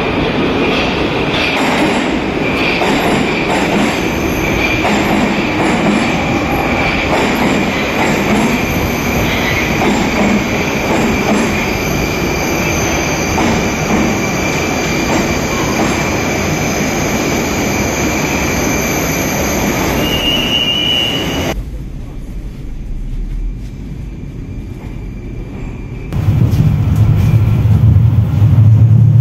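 Moscow metro train arriving and running along the platform: loud, steady wheel-on-rail noise with a thin squeal over it. About three quarters of the way in it cuts to a quieter stretch, and near the end a loud low hum from inside a moving tram takes over.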